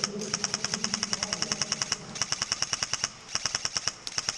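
Stock Matrix S&T M4 airsoft electric gun firing on full auto in rapid bursts, a motor whine under the clatter of the gearbox. A long burst of about two seconds, then shorter bursts after brief pauses.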